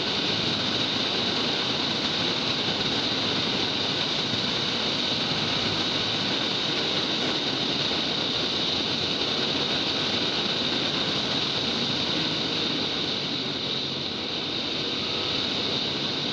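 Hyosung GT650R's V-twin engine running at road speed under a steady rush of wind on the helmet-mounted camera's microphone. The wind noise eases slightly near the end as the bike slows.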